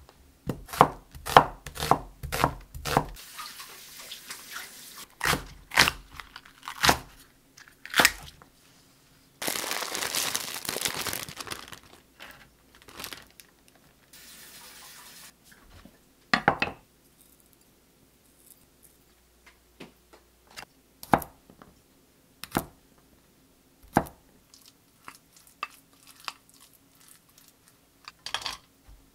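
Chinese cleaver chopping an onion on a wooden cutting board: a quick run of knocks, about two or three a second, for the first few seconds, then more scattered chops. About ten seconds in there are a couple of seconds of rustling, tearing noise, followed by sparse clicks and knocks of kitchen prep.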